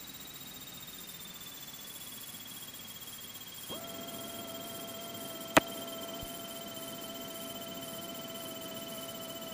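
Cessna 152 cockpit intercom audio on the descent toward landing: a steady hiss with a thin high whine that slowly falls in pitch. About four seconds in, a steady beep-like tone comes on and holds to the end, and a single sharp click sounds partway through.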